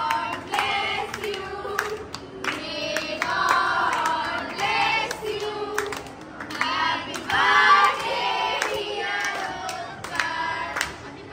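A group of children and adults singing a birthday song together, with hands clapping along.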